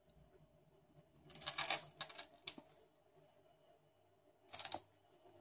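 A tea canister handled and turned in the hands, with fingernails against its sides: short scuffs and clicks about a second and a half in, twice more soon after, and again near the end.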